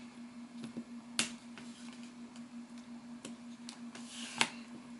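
Sharp plastic clicks and snaps from the clip-fastened case of a Samsung ATIV Smart PC Pro 700T tablet being pried apart: scattered light ticks, a louder snap about a second in and the loudest near the end. A steady low hum runs underneath.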